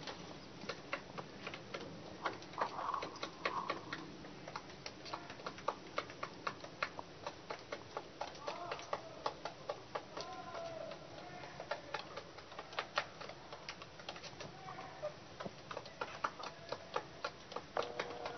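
Hens pecking feed from a wooden board and plastic tub: an irregular run of sharp beak taps, several a second, with soft clucks now and then.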